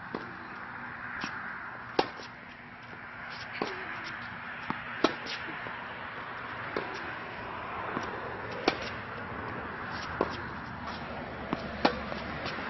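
Tennis rally on a hard court: the sharp pock of tennis balls struck by racquets every second or two, with the loudest hits, from the near player's groundstrokes, coming about every three seconds and quieter ones from the far end in between.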